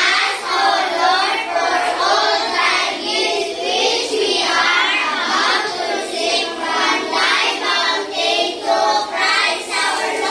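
A class of young children singing together in unison, loud and continuous.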